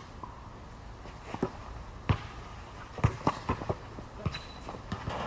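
Basketball bouncing on a hard outdoor court: scattered single thuds, then a quick run of about four dribbles about three seconds in.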